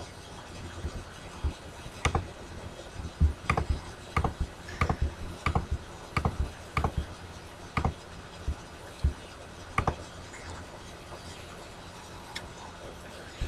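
A computer mouse clicked repeatedly, about fifteen short, sharp clicks at irregular intervals, stopping about ten seconds in.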